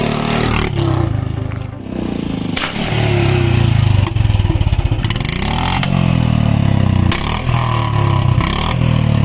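Royal Enfield Bullet's single-cylinder engine revving up and down through a six-foot-long Punjabi silencer, very loud, with several sharp backfire pops from the exhaust as the revs drop.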